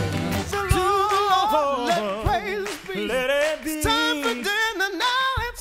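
A group of men and women singing a country-gospel chorus together, mostly a cappella with the band dropped back, and a low thump about every second and a half.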